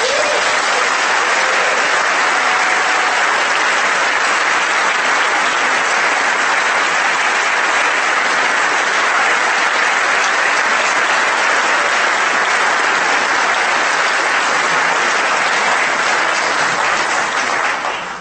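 Audience applauding, starting abruptly and going on loud and steady, then dying away near the end.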